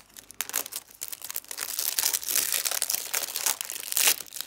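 Packaging on a bundle of embroidery thread rustling and crinkling as it is pulled and torn open by hand, in a dense run of irregular crackles that grows busier about a second in.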